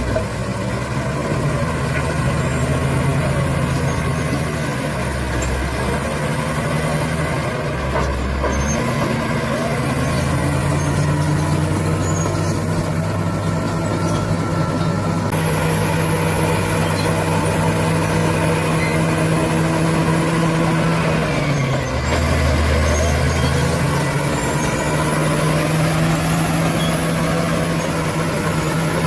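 Bulldozer's diesel engine running under working load, its note stepping up and down several times as the throttle and load change.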